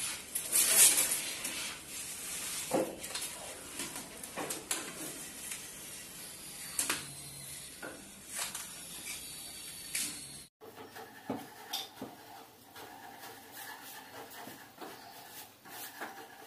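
Scattered knocks, taps and clicks of hand work on a laminated wooden cabinet frame, with a burst of rustling near the start. After an abrupt cut about ten seconds in, the taps are fainter over a steady background hum.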